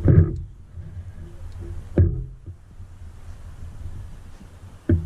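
Footsteps thudding on the carpeted aluminium deck of a pontoon boat: three dull knocks, about two to three seconds apart, over a low steady rumble.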